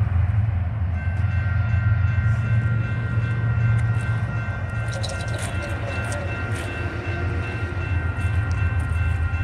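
Railroad grade crossing warning bell starts ringing about a second in, a fast, steadily repeating ding, over a deep steady low rumble.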